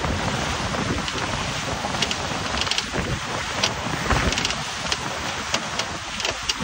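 Wind buffeting the microphone and water rushing along the hulls of a Dragonfly 28 trimaran sailing fast, a steady rushing noise with a few scattered short ticks.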